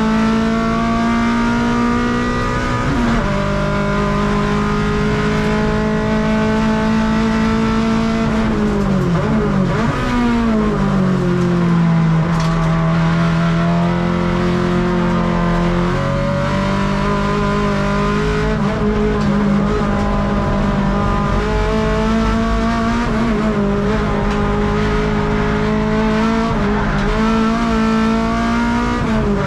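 Honda K24A four-cylinder engine of an EG6 Civic race car, heard from inside the cabin, running hard on track. The revs hold fairly steady for long stretches, drop away about eight seconds in and pick up again from about ten seconds.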